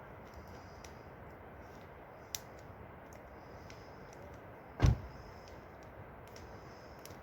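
A steady low hiss with a few faint clicks, and one loud, short thump about five seconds in.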